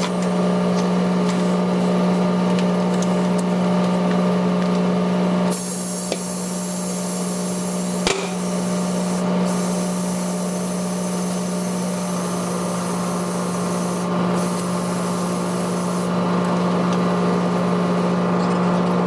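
A steady machine hum with hissing that grows louder for about ten seconds in the middle, and one sharp click about eight seconds in.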